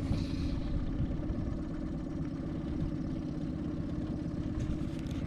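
Small outboard motor running steadily at slow trolling speed, a constant low hum.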